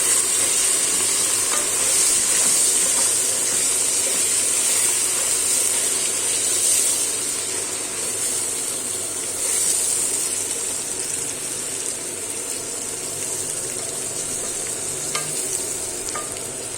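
Rice sizzling steadily in hot fat in a pot while it is stirred to toast it, with a couple of light spoon taps near the end.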